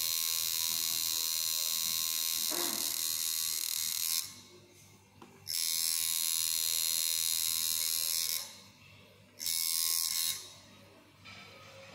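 Tattoo machine buzzing with a high-pitched whine as the needle works the skin, stopping and starting: it runs about four seconds, pauses for a second, runs about three more, pauses, then runs briefly once more around ten seconds in before stopping.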